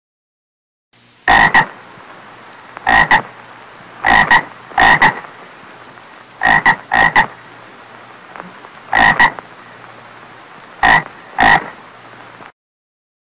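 A toad calling in shallow water: about a dozen short, loud croaks, many in quick pairs, over a faint steady hum. The calling starts about a second in and cuts off sharply near the end.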